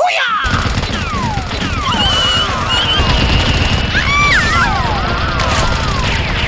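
Rapid, continuous gunfire sound effects from a battle soundtrack, with repeated whistling sweeps that rise and fall in pitch over the shots.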